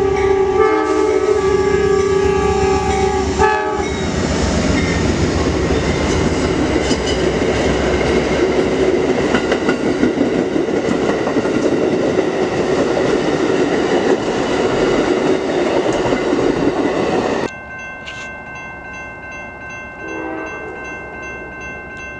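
Amtrak passenger train's horn sounding a chord, ending about three and a half seconds in, then the train rushing through the crossing with wheels clattering over the rails. The rushing stops suddenly about seventeen seconds in, leaving the grade crossing's warning bell ringing.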